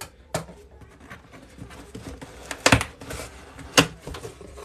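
Cardboard shipping box being opened by hand: flaps pulled apart and folded back, with scraping cardboard and several sharp snaps. The loudest snaps come about two and three-quarter seconds in and near four seconds in.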